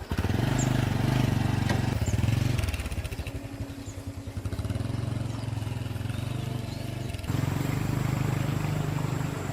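Motorcycle engine running steadily, easing off for a moment partway through and then picking up again sharply near the end.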